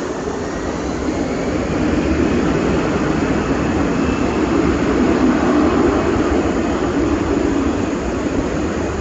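Jet blast from an Airbus A321-211's twin CFM56 turbofans heard from directly behind the aircraft as it rolls away down the runway on takeoff: a loud, steady rushing rumble that builds over the first two seconds, peaks about halfway through, then eases slightly.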